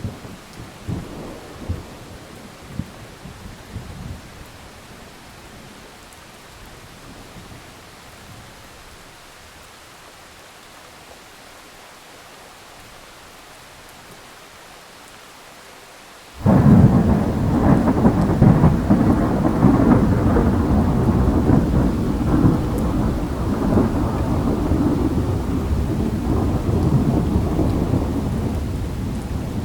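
Thunderstorm: steady rain with a rumble of thunder dying away in the first few seconds. About 16 seconds in a sudden loud thunderclap breaks, and its crackling rumble carries on over the rain, slowly fading near the end.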